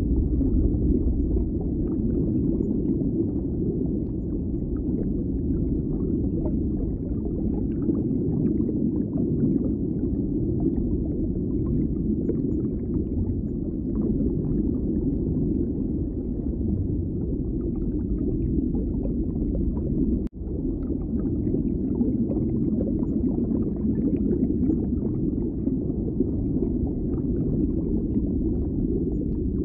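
Steady, muffled, low-pitched background noise of a large indoor hall, with no clear individual sounds; it cuts out for a split second about twenty seconds in.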